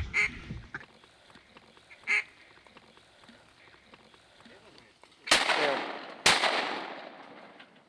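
A short duck quack about two seconds in, then two shotgun shots about a second apart, each ringing off in a long echo.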